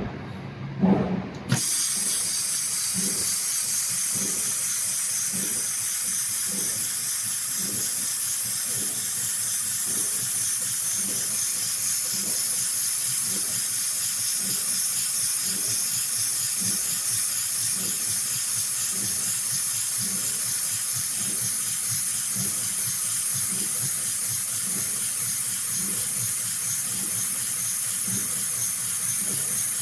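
Heavy-duty rope-sewing machine running: a couple of loud knocks near the start, then a steady hiss with a soft rhythmic pulse about twice a second.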